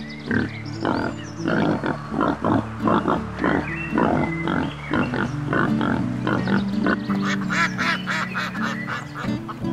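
Wild boar grunting in short, quick calls, then from about seven seconds in mallard ducks quacking, over steady background music.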